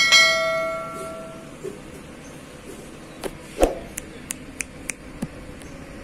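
Notification-bell chime sound effect of a subscribe-button animation: a single bright bell ding with several clear tones that fades over about a second and a half, just after quick mouse-click sounds. Later a sharp knock and a run of short ticks, about three a second.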